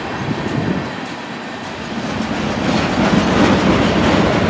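Freight train rolling by, its wheels clattering over the rails in a steady rumble that grows louder about two and a half seconds in.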